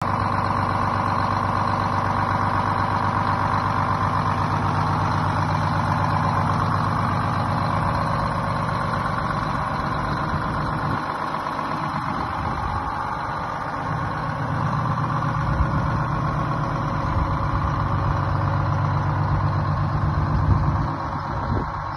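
1948 Greyhound Silversides PD-3751 bus's Detroit Diesel 6-71 two-stroke diesel engine idling steadily, its low drone dipping for a few seconds about halfway through.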